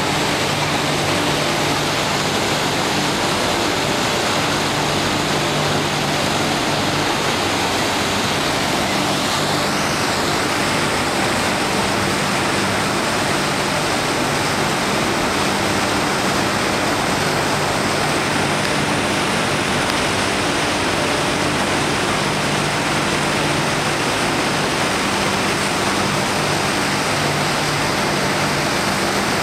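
Steady, even rushing noise of road traffic, with a faint low engine hum from the vehicles that comes and goes.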